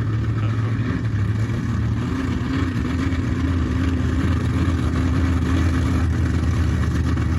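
Monster truck engine running at low, steady throttle: a loud, even low drone with no hard revving.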